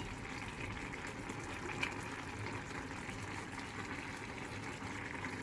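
Paella broth with rice and seafood bubbling steadily in the pan over a high flame, with a light clink about two seconds in.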